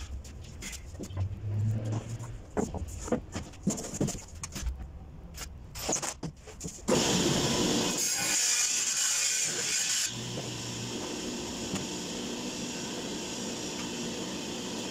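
Knocks and clatter of a plywood sheet being handled at a table saw, then about seven seconds in the saw blade cuts through 6 mm plywood, a loud noise lasting about three seconds. After the cut the saw keeps running steadily.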